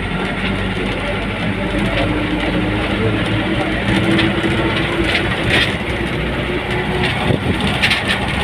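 Bus interior while driving: steady engine drone mixed with road and wind noise through the open window, with a few short rattles from the body and window fittings.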